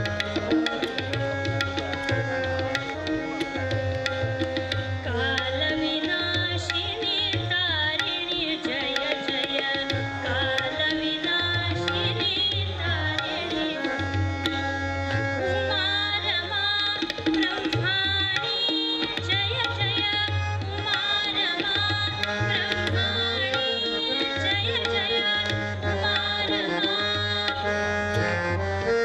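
Devotional kirtan music: tabla strokes under sustained melodic lines, continuous throughout.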